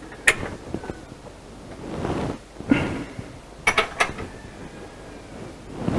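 A few sharp metallic clicks and clinks of a socket wrench tightening the hold-down nuts on a bolted-down plate, with a quick cluster of clicks about four seconds in.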